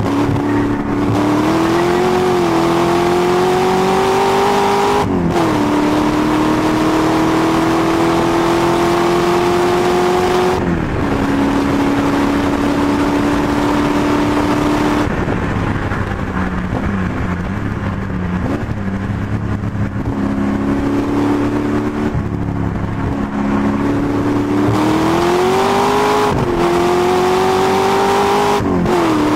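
Rover V8 engine of a 330 bhp MGB V8 race car under hard acceleration, heard from inside the car: the engine note climbs steadily and drops sharply at each upshift, about five and ten seconds in. Midway it falls and wavers lower as the driver lifts off for a corner, then climbs again with two more quick upshifts near the end.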